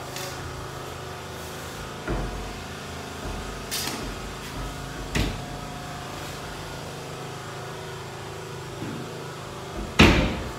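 Wooden wardrobe door being opened and handled: a few short knocks and clacks, then a loud sharp knock near the end, over a steady low hum.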